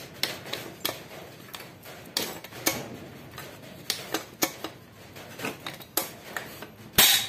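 Hand rivet gun clicking and knocking as its handles are squeezed to pull pop rivets into a racing exhaust muffler, with the loudest sharp crack about seven seconds in, the snap of a rivet mandrel breaking off as the rivet sets.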